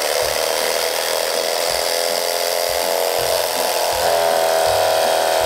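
Cuisinart CEK-30J electric knife running, its motor and reciprocating serrated blades making a steady buzz as they saw down through a cream cake topped with candied chestnuts and black beans. The buzz gets a little stronger from about four seconds in.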